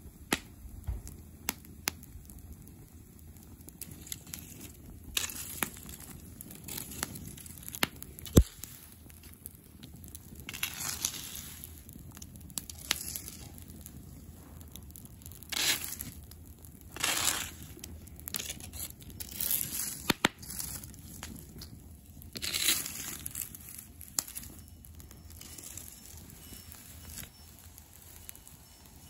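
Bonfire of dry twigs and brushwood burning, crackling with irregular sharp pops and several louder bursts of crackling; the loudest pop comes about eight seconds in.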